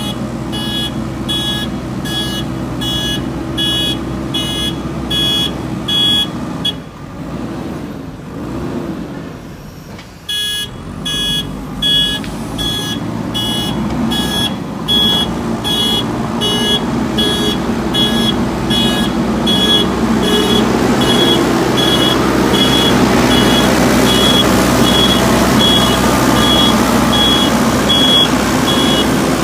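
JCB 3DX Super backhoe loader's diesel engine running, with its reversing alarm beeping about twice a second. The beeping stops for a few seconds about seven seconds in, then resumes, and the engine gets louder in the second half as it works harder.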